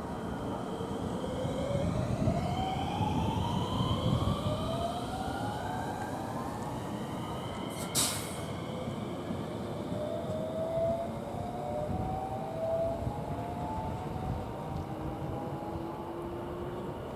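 JR West 521 series electric train pulling away and accelerating. Its inverter-driven motors whine in several tones that rise in pitch in overlapping steps, over a low rumble of wheels on track. A short sharp noise comes about eight seconds in.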